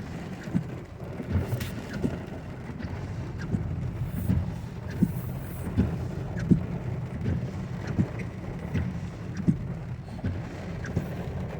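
Storm wind rumbling on the microphone, with scattered short knocks and thuds.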